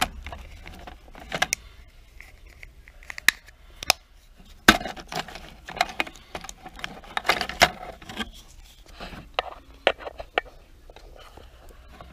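Tools and small objects in a tool chest drawer clicking and knocking as they are handled and moved about: scattered sharp clicks, the loudest about four and a half seconds in, and a busier run of them around seven to eight seconds.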